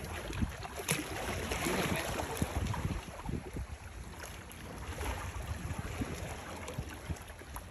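Choppy seawater washing and slapping against jetty boulders, with wind buffeting the microphone.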